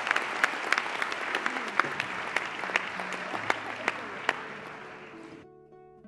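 Audience applauding, with many sharp individual claps, fading away and stopping about five seconds in. Soft guitar music comes in underneath and is left on its own at the end.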